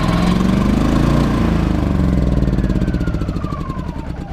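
Champion 3100-watt inverter generator's small gasoline engine firing on an automatic start attempt, running briefly and then winding down in pitch as it stalls. This is a failed start after seven months of sitting: the carburettor had been run dry, which the owner takes as the likely cause.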